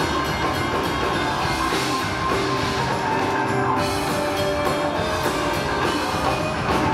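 Live rock-and-roll band playing: drum kit, upright bass, electric guitar and keyboard together, steady and loud.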